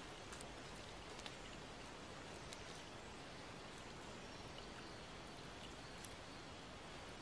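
Faint, steady outdoor background noise, an even hiss with a few scattered light ticks.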